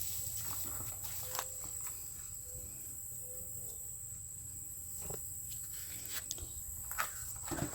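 A steady high-pitched insect chirring, crickets, with a few short rustles and light knocks from someone handling straw and potatoes.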